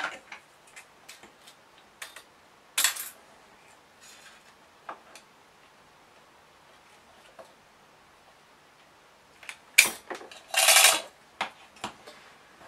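Kitchen scissors cutting through the steel blade of an old tape measure: a short metallic crunch about ten seconds in, after scattered clicks and taps of the metal tape being handled.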